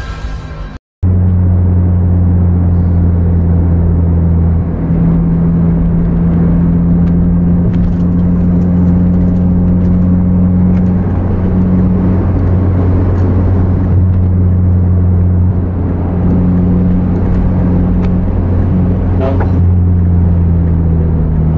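Car engine and road noise heard from inside the cabin while driving at speed: a steady low drone that barely changes.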